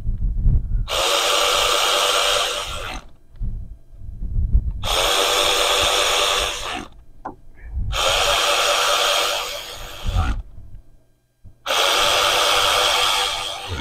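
Cordless power tool whirring in four runs of about two seconds each, driving in the cam bridge bolts on a 2008 Volkswagen GTI engine, with low knocks of handling between the runs.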